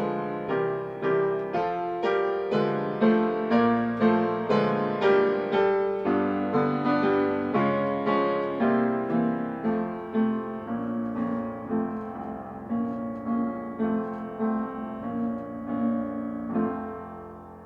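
Solo piano playing a slow public-domain tune, notes struck about twice a second, growing softer over the last several seconds and ending on a fading note.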